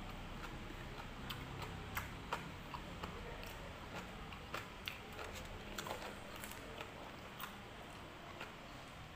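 Close-up chewing and mouth sounds from eating crunchy green papaya salad: irregular soft clicks and smacks, faint, over a low steady hum.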